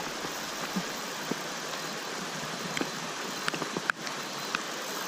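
Steady rush of flowing creek water, with a few faint ticks and clicks scattered through.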